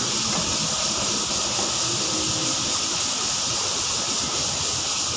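Steady, high-pitched hissing drone of insects in the forest canopy, even throughout.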